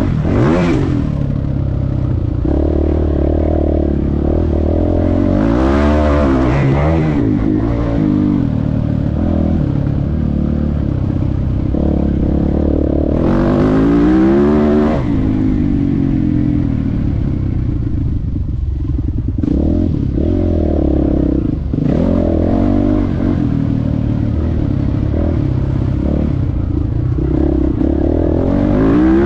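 Motocross bike engine under race throttle, heard from on the bike itself: the engine note climbs in repeated rising sweeps as the throttle opens, then drops back, without a break.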